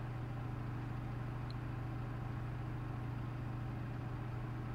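Steady low electrical hum of a running kitchen appliance, even and unchanging, with a faint hiss above it.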